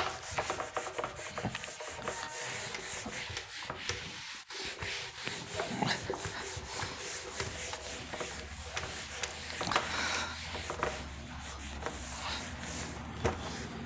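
Irregular rubbing and scraping noise with scattered small clicks; a low steady hum comes in about halfway through.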